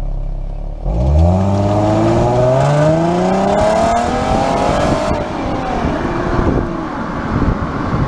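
A car's stock exhaust, with no whistle fitted, idles and is then revved. About a second in, the engine note jumps in loudness and rises steadily in pitch for about three seconds, then falls back toward idle.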